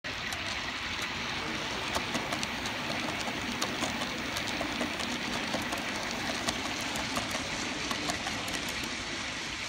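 Model train of Southern Railway diesel locomotives and loaded coal hoppers running past on the layout's track: a steady running noise with scattered clicks from the wheels on the rails.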